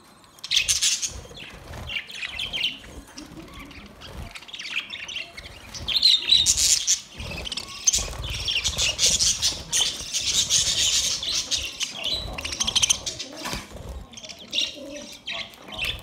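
A flock of budgerigars chattering and chirping with quick, high calls, with bursts of wing flapping as birds flutter down onto fresh greens. The chatter is busiest and loudest around the middle.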